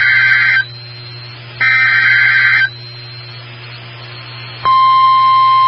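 Weather radio emergency alert: the end of an EAS SAME digital header, harsh buzzy data bursts each about a second long, sent twice about a second apart. After a short pause the steady 1050 Hz NOAA Weather Radio warning alarm tone starts, signalling a new warning.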